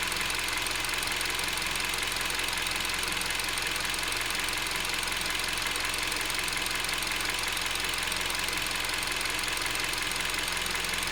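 Hyundai Solaris engine idling steadily with a fast, regular metallic knock under the bonnet that sounds like two metal balls striking each other. The owner does not know its cause.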